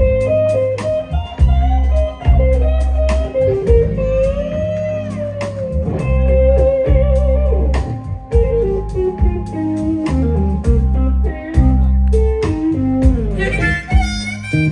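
Live blues-rock band playing an instrumental break: a lead electric guitar line with bends and vibrato over bass and a steady drum beat.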